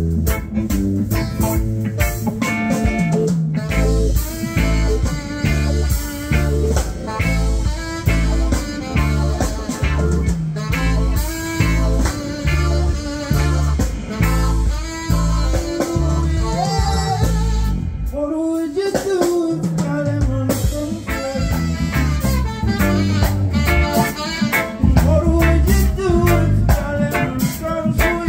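Live reggae band playing: bass guitar, drum kit, electric guitar, keyboard and saxophone, with singing. The bass drops out briefly about eighteen seconds in, then comes back.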